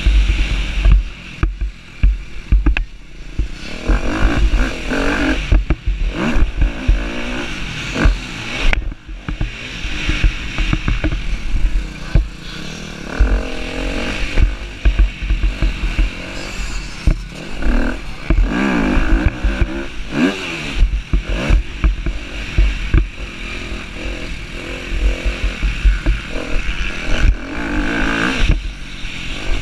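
Husqvarna TC250R motocross bike's engine revving hard, the pitch climbing and dropping again and again through the gears, with heavy wind buffeting on the microphone.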